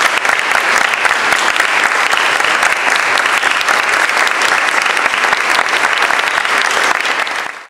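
Audience applauding steadily, a dense crackle of many hands clapping; it cuts off suddenly near the end.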